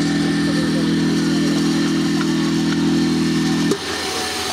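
Portable fire pump engine running steadily. Near the end the sound changes abruptly to a rougher, less even engine sound.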